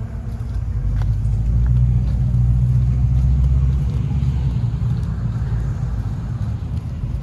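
Car engine rumbling with a steady low note, growing louder about a second in and easing off again toward the end.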